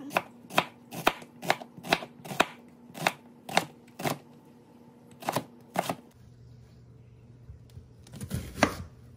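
Kitchen knife slicing a white onion on a plastic cutting board, the blade knocking the board about a dozen times at roughly two cuts a second, then a pause and a quick few cuts near the end.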